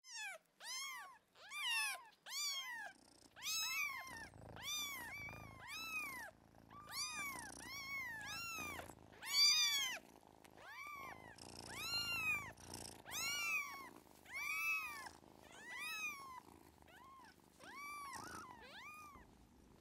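Kittens mewing over and over, short high rise-and-fall cries about two a second, with a cat's low purr underneath.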